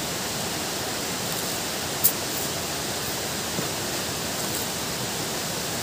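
Steady rush of flowing water, even and unbroken, with two short crisp clicks, one about two seconds in and one near the end.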